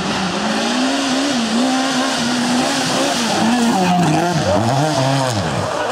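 Rally car engine held at high revs through a corner, with a steady hiss of tyre noise over it. Near the end the revs fall away in a couple of swooping drops.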